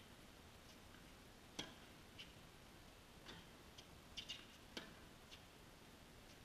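Faint, sharp knocks of a tennis ball being struck by rackets and bouncing on a hard court during a rally, about half a dozen spread over a few seconds, the two loudest about a second and a half and nearly five seconds in.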